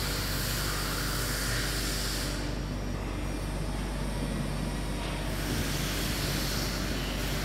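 Teksam SPSM1600 manhole machine running: a steady mechanical hum with a high hiss over it, the hiss easing off for about three seconds in the middle.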